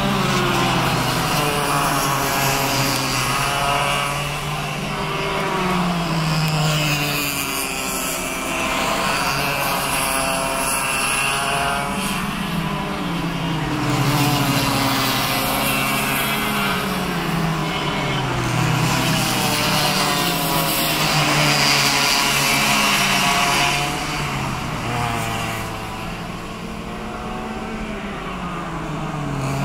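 Several cadet karts' small two-stroke engines racing, each one's pitch repeatedly rising as it accelerates and falling as it lifts off for the corners, several engines overlapping at once. The sound swells and fades several times as the pack passes, loudest about halfway through.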